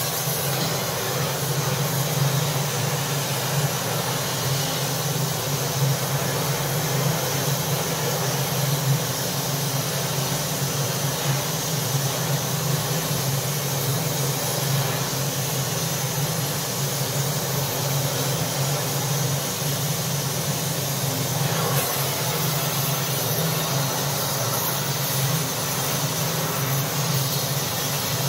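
Gas torch flame burning with a steady roaring hiss as it heats a steel suspension beam tube toward red heat, to free the pressed-in collars.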